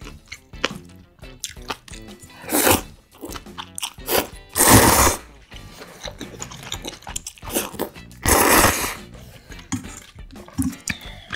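A person slurping spicy jjambbong noodles three times, with wet chewing and small crunches between the slurps.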